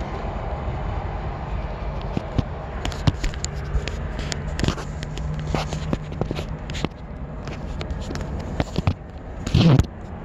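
A phone being handled close to its microphone: scraping, rubbing and small knocks over a steady low rumble, with a louder brushing rub near the end.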